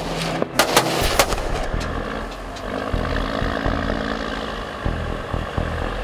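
About four sharp gunshots in the first second and a half, fired from a patrol ship at a fleeing fishing boat to make it stop. After them the ship's engine drones steadily, with wind.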